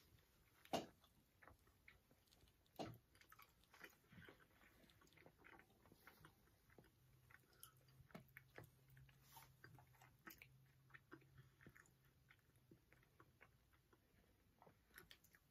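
Faint, close chewing and mouth sounds of people eating soft cookies, with scattered small wet clicks. Two louder smacks come about a second in and again near three seconds.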